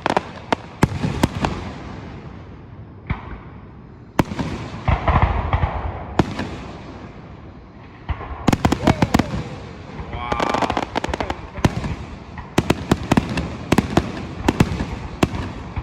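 Fireworks display: aerial shells bursting with sharp bangs and a deep boom about four seconds in, and rapid runs of crackling reports about eight to ten and twelve to fifteen seconds in.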